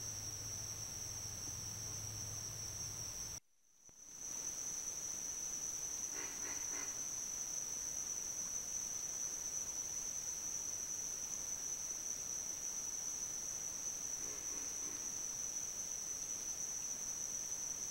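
Steady, high-pitched insect chorus of a summer night, breaking off for a moment about three and a half seconds in as the trail-camera clip changes. Two short pulsed calls come through it, about six and fourteen seconds in.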